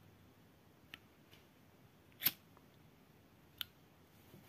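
Three separate sharp clicks over faint room tone, a faint one about a second in, the loudest a little past two seconds, and another about a second later.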